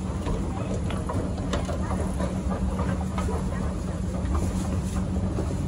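Escalator running: a steady low mechanical hum with scattered light clicks and rattles from the moving steps.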